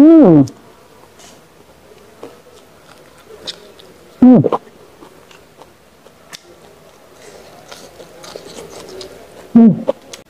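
A person eating by hand, with faint chewing and mouth clicks. Three short, loud voiced hums break in, each rising then falling in pitch, about four to five seconds apart.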